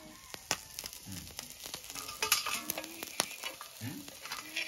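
Small river fish sizzling in oil on a flat iron tawa, with a metal ladle scraping and clicking against the pan. Toward the end the fried fish are scraped off the tilted tawa into a steel plate.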